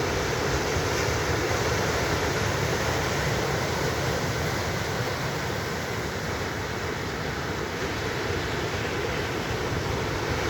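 Ocean surf: waves breaking and washing in as a steady, even wash of noise with no distinct single crashes.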